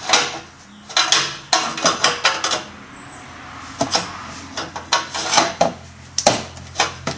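Metal clanking and knocking as a pry bar works a stuck factory exhaust pipe loose: irregular sharp clanks, several in quick succession, in two bursts with a short lull between.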